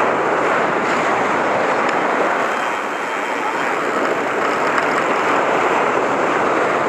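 Steady rushing noise of ocean surf and wind, with wind buffeting the microphone.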